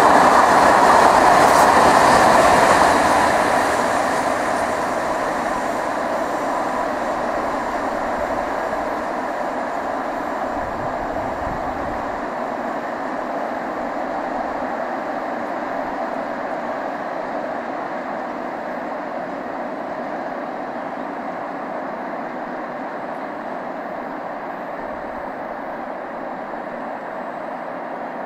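Freight train's hopper and open wagons rolling along the rails: a steady rolling noise, loudest in the first three seconds, then fading slowly as the train draws away.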